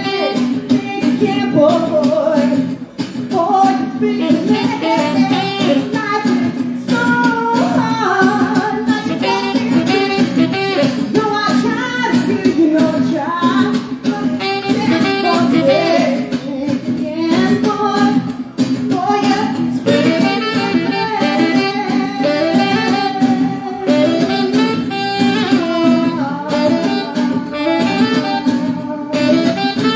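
Live saxophone solo, a melody line moving up and down over strummed guitar accompaniment.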